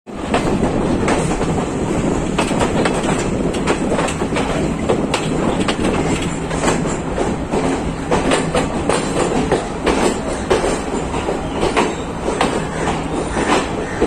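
Moving train running on the rails: steady rumble with wheels clattering over rail joints in frequent irregular clicks.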